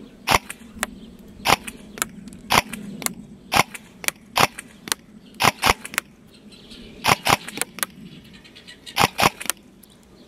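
G&D DTW electric airsoft rifle firing single shots of 0.25 g BBs, a sharp snap for each, over a dozen at uneven intervals with some in quick pairs and a triple near the end.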